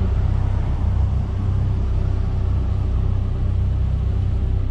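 Van engine and road noise, a steady low rumble.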